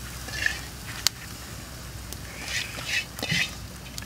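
Poultry calling in short bursts, once about half a second in and three times in quick succession near the end. A single sharp click, such as charcoal crackling under the grill, comes about a second in.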